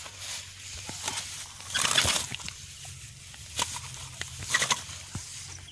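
Grass rustling as a landed snakehead thrashes and is grabbed and handled: several short bursts of rustling, the loudest about two seconds in, with a few sharp clicks between them.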